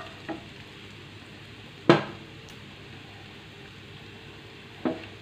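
Chopped garlic and grated ginger sizzling steadily in hot oil in a nonstick frying pan. A wooden spatula knocks sharply against the pan about two seconds in, the loudest sound, and again more lightly near the end.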